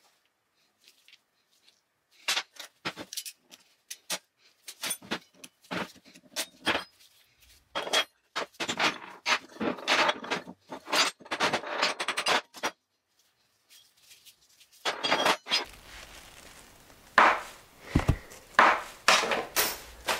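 Steel gearbox parts (gears, shafts and bearings) clinking and knocking against each other and on a steel workbench as a gearbox shaft is stripped down, in a long run of sharp clinks, densest in the middle. After a short lull near the end, more knocks come over a faint steady hum.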